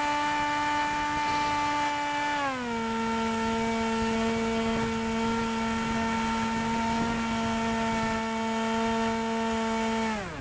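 RC airplane's small motor, heard close from the onboard camera, running with a steady whine. About two and a half seconds in it throttles back to a lower pitch, and near the end it winds down sharply.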